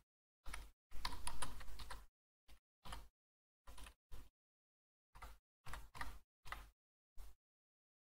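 Typing on a computer keyboard: short clusters of key clicks with silent gaps between them, and a quick flurry of keystrokes about a second in.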